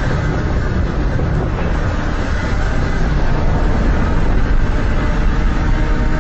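Giant-monster sound effect: a loud, dense, steady mechanical rumble with a deep low end.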